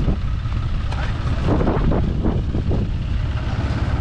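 Low, uneven rumble of wind buffeting the microphone, with a few short, louder sounds about halfway through.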